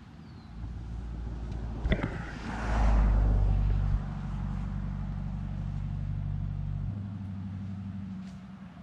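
A motor vehicle's engine running nearby with a steady low hum, loudest about three seconds in and dying away near the end. There is one sharp click about two seconds in.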